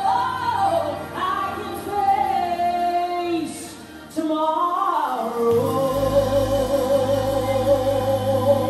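A woman singing a gospel hymn live with a band of keyboards and bass. Her line bends through a phrase and drops off briefly about four seconds in, then she holds one long note with vibrato over a low swell from the band.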